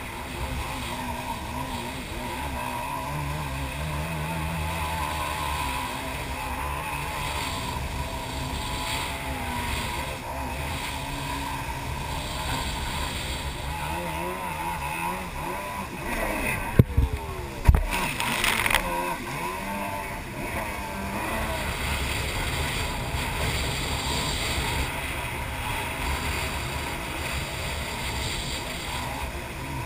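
Jet ski engine running and rising and falling in pitch, with water rushing past the hull. About two-thirds of the way through come two sharp knocks, then a short burst of splashing spray.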